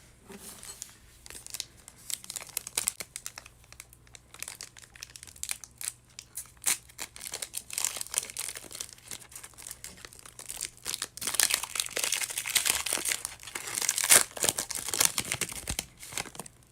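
A 2019 Panini Contenders football card pack's wrapper being crinkled and torn open: scattered crackles at first, then a denser, louder stretch of crinkling near the end.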